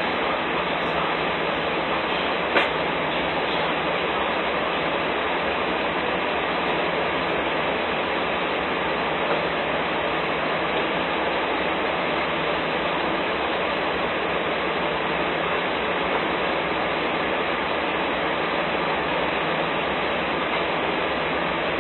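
Steady, even noise of idling semi-truck engines, with one faint click about two and a half seconds in.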